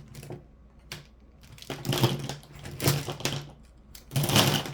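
Paper rustling as planner pages and sheets are handled, in three short bursts, the last the loudest.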